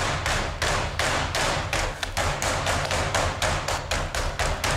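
Smooth face of a metal meat mallet pounding a boneless turkey breast through plastic wrap on a cutting board: a steady run of quick thuds, about four a second, flattening the meat to an even thickness.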